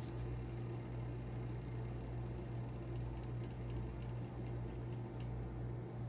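A steady low hum with a slight regular throb, with a few faint light clicks in the second half.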